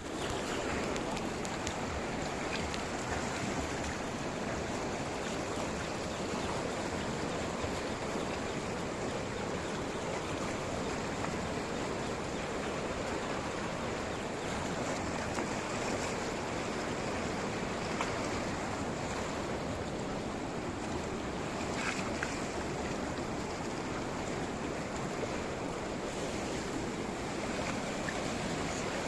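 Flowing water rushing steadily without a break.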